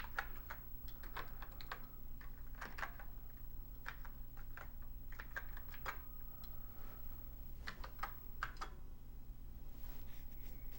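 Keystrokes on a Commodore SX-64's keyboard, an irregular run of clicks as a command is typed, stopping near the end. A steady low hum runs underneath.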